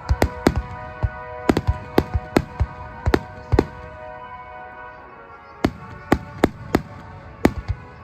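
Fireworks bursting in a quick, irregular string of sharp bangs, with a pause of about two seconds midway. Music with held notes plays underneath.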